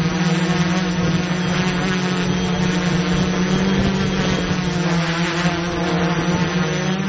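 Quadcopter drone's propellers and motors humming steadily in flight, a strong low buzz with many overtones.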